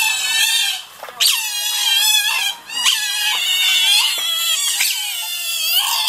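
Asian small-clawed otter squealing: long, high-pitched, wavering calls, broken by brief pauses about a second in, near the middle and about five seconds in.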